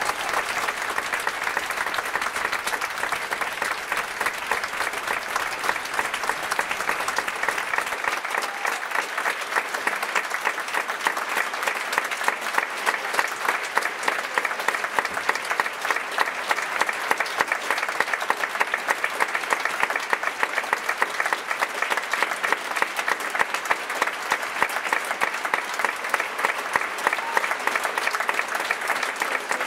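Large audience applauding in a theatre, a dense, steady clatter of many hands clapping that keeps on without a break.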